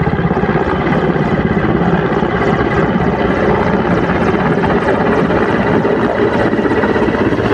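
Mil Mi-17 helicopter close by on its landing approach: the rotor's fast, steady chop over the whine of its twin turbine engines.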